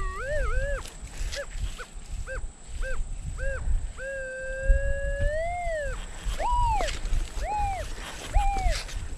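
Minelab Manticore metal detector sounding its target tone. Short beeps come about twice a second as the coil sweeps, then one long steady tone in the middle, then higher-pitched beeps near the end. The tones signal a buried metal target reading in the low 90s.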